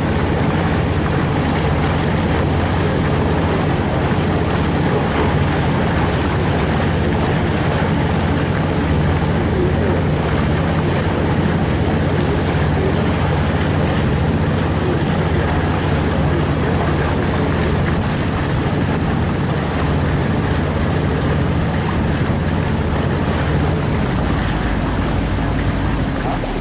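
Small motorboat's engine running steadily, a constant low hum over the wash of water and wind on the microphone; the engine note shifts and drops slightly near the end.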